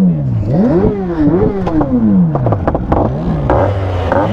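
Superbike engine revved by repeated throttle blips: each rev climbs quickly and falls away, with sharp exhaust crackles as it drops. It settles into a steady idle about three and a half seconds in.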